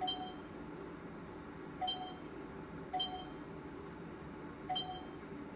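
Sony FDR-AX100E camcorder's touchscreen beeping as its menu is tapped through: four short, high electronic pings, spaced unevenly, over a steady low background hum.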